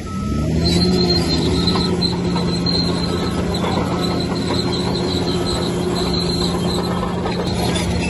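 Bulldozer's diesel engine running steadily under load, with a high metallic squeal from its steel crawler tracks that comes and goes.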